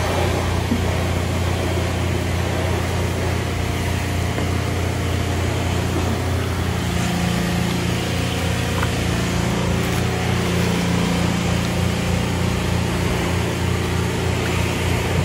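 A steady low mechanical hum, with a slightly stronger low tone from about six seconds in.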